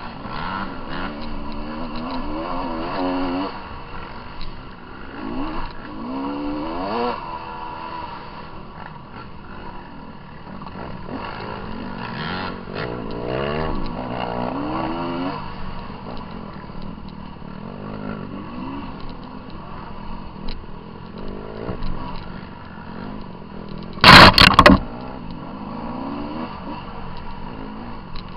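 GasGas dirt bike engine being ridden hard, revving up and down with the throttle so its note rises in pitch every few seconds over a steady rattle. Near the end there is one very loud, short clattering knock.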